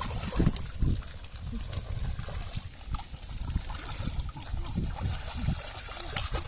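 Shallow water splashing and trickling, with irregular low thuds throughout.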